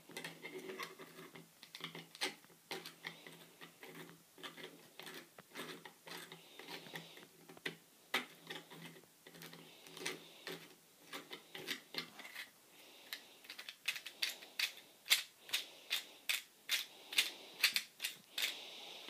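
3D-printed plastic crank-and-piston model turned by hand, its plastic parts clicking and clacking as the wheel goes round. From about two-thirds of the way through the clicks get louder and more regular, about two a second.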